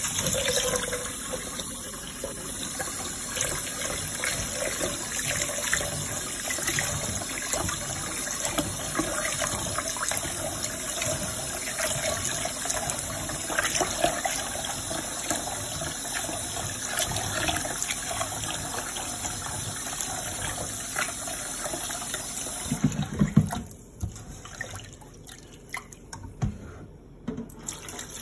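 Tap water runs into a stainless steel pot of brown rice while a hand swishes the grains to wash them. Near the end there is a knock, the steady flow stops, and quieter splashing follows as the cloudy rinse water is tipped into the sink.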